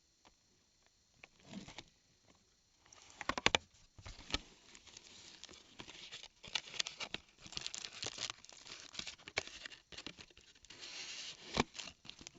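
A trading-card box being opened by hand: packaging crinkling and tearing and cardboard rustling, with sharp clicks and snaps, the loudest a cluster of clicks about three seconds in and a snap near the end.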